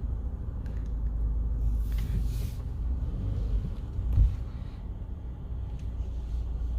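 A car's low, steady engine and road rumble, with one brief thump about four seconds in.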